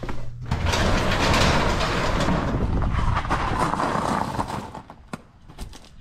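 Sectional garage door rolling open along its metal tracks, with a loud rattle for about four seconds, then a few clicks as it stops.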